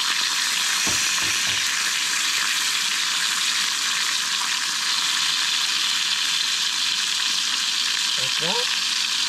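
Bacon frying in a pan, a steady sizzle, with a brief knock about a second in.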